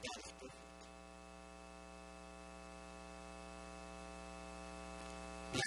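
Steady electrical mains hum with a buzzy stack of overtones, slowly growing louder.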